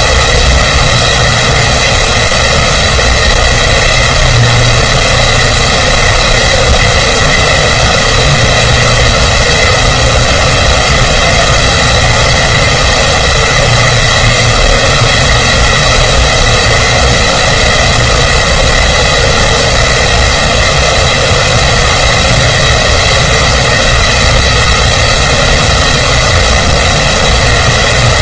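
A loud, steady mechanical drone with a constant high whine, unchanging throughout.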